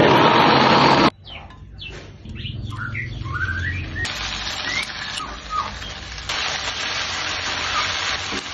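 Food frying in hot oil in a pan: a loud burst of sizzling for about a second that cuts off suddenly, then a steady sizzle from about four seconds in that grows louder near six seconds. Birds chirp in between.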